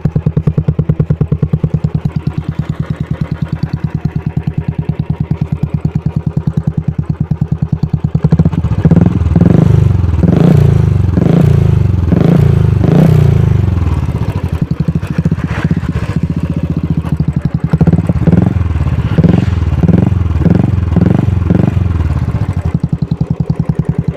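Royal Enfield motorcycle with an aftermarket exhaust idling with an even thump, then revved in a string of short blips from about eight seconds in, each rising and dropping back, before settling to idle again near the end.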